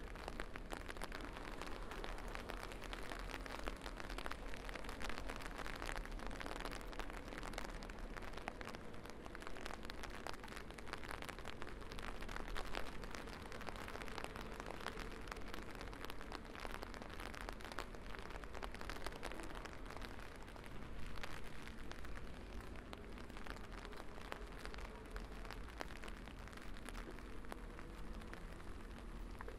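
Steady rain falling: a dense, even patter of raindrops hitting the ground and surfaces around.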